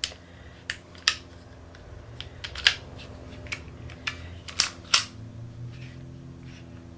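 Sharp metallic clicks and clacks of a Kel-Tec P32 pistol's slide and small parts being handled and fitted back onto the frame during reassembly. There are about a dozen irregular clicks, the loudest about a second in, near the middle and about five seconds in, over a low steady hum.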